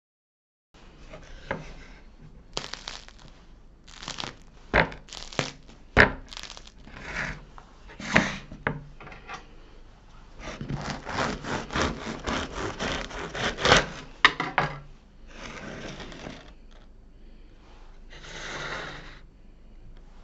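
Crisp crust of a baked pan candeal loaf crackling as it is handled and sawn through with a serrated bread knife on a wooden board. Scattered crackles and knocks come first, then a dense run of crackling, then two longer, softer rasps near the end.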